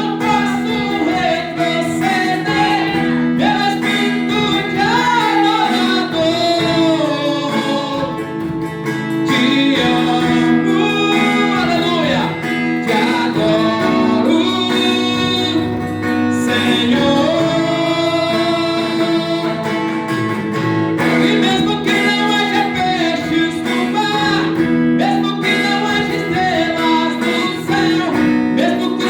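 A Portuguese-language worship song: a voice singing a melody over strummed acoustic guitar.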